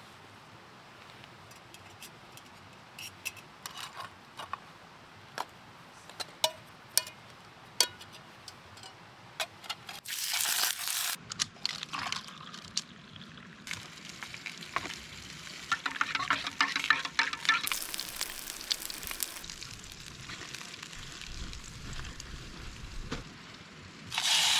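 Camp cooking sounds: scattered light clicks and taps of a metal pot and utensils for the first ten seconds or so, then several stretches of hissing and sizzling from the stove and pot, with a liquid being poured or stirred.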